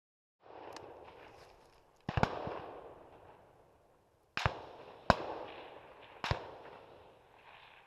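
Gunshots from neighbouring hunters firing at a stag: a quick pair about two seconds in, then single shots at roughly four and a half, five and six seconds, each trailing off in an echo across open country.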